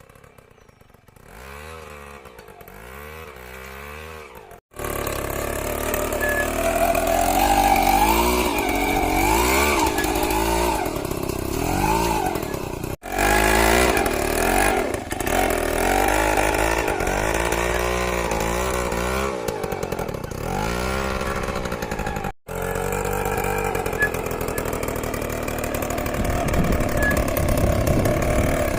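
Homemade weeding machine built from a TVS Max 100 motorcycle, its small two-stroke engine running under varying load with its pitch rising and falling. It is faint at first and turns loud about five seconds in. It cuts out abruptly twice.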